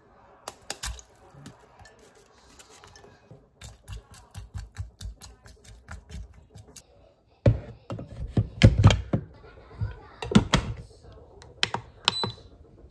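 Kitchen handling sounds on a rice cooker: small clicks and taps as corn kernels are tipped into the rice cooker's inner pot and stirred with a wooden spatula, then heavier knocks around the middle, and a short high beep near the end as the rice cooker's start button is pressed.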